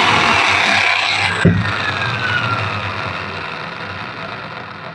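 Electric 5 kg demolition breaker's motor running with a high whine, switched off with a click about a second and a half in, then spinning down with a slowly falling whine. The motor runs but the hammer mechanism is not striking.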